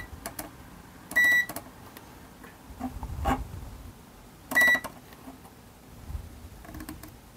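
Digital multimeter's continuity beeper giving two short, high beeps about three seconds apart as the probe is stepped along a stepper-driver module's pins. Each beep marks a pin with continuity to ground, here the expected ground pin rather than a solder short.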